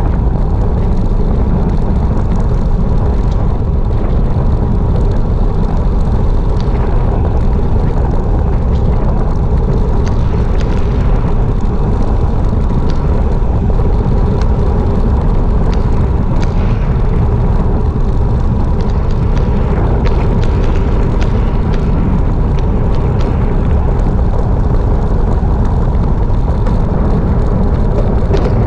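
Wind rushing over an action camera's microphone on a road bike during a fast downhill descent: a steady, loud rumble that never lets up, with light ticks here and there.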